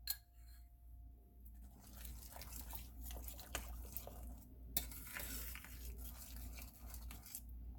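A spoon stirring a sauce that is thickening with a flour slurry in a stainless steel skillet, scraping faintly against the pan, with a few light clicks, the sharpest about five seconds in.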